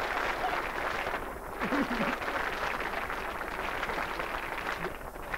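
Studio audience laughing and clapping, a dense crackle of many hands.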